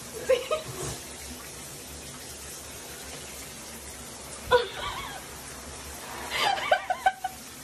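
Shower spray running steadily onto a bathtub floor. A person laughs in short bursts near the start, about halfway through and again near the end.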